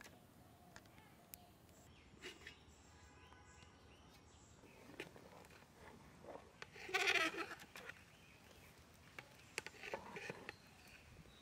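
An animal bleats loudly once, about seven seconds in, with a shorter, weaker call near the end. Under it are scattered light clicks of a metal ladle stirring a thick mixture in a metal pot.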